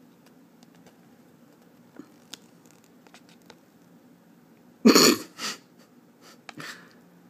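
A person coughs once, sharply, about five seconds in, with a smaller second burst right after and a weaker one a second later. Faint ticks of a paper instruction sheet being handled come before it.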